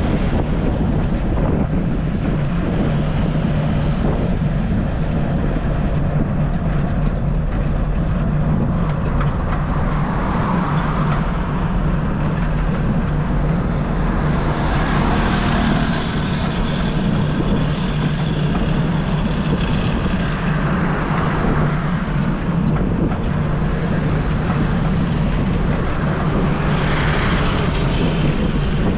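Road traffic passing a cyclist, several vehicles swelling up and fading away over a steady low rumble of wind on the microphone.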